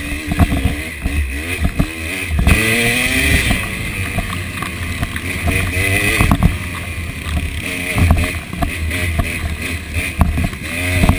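KTM 300 two-stroke dirt bike engine heard from the rider's seat, its pitch rising and falling quickly as the throttle is worked over rough trail, with frequent knocks and clatter from the bike bouncing over the ground.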